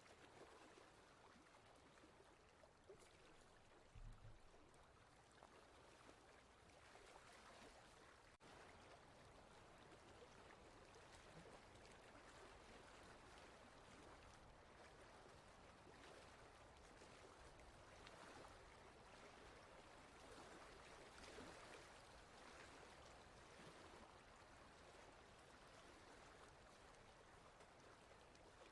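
Near silence: a faint, steady rushing hiss.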